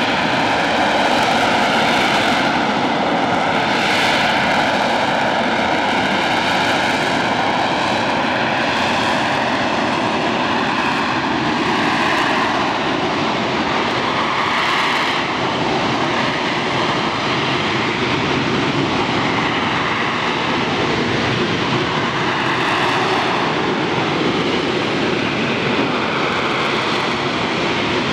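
AV-8B Harrier II's Pegasus turbofan running loud and steady in a hover, with a high whine over the jet roar that wavers slowly in pitch.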